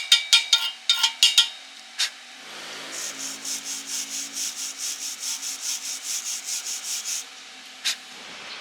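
Fast ringing taps of a hammer on steel, about five a second, which stop about a second and a half in. Then a wire brush is scrubbed back and forth over the metal, about four strokes a second, for roughly four seconds. Together these are typical of chipping slag off a stick weld and brushing the bead clean.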